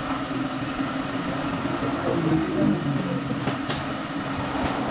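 Steady hum of tyre-shop machinery, with a wavering rise in the hum about halfway through and two sharp metallic clicks near the end.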